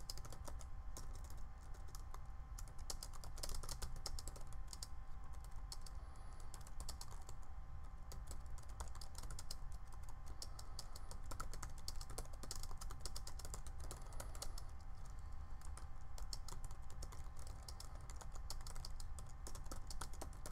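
Typing on a computer keyboard: a steady, irregular run of quick key clicks as a message is written out, over a faint low hum.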